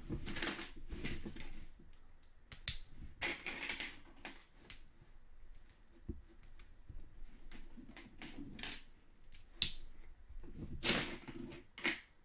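Small plastic Lego pieces clicking and rustling as they are handled and pressed onto a model, with one sharp click about ten seconds in.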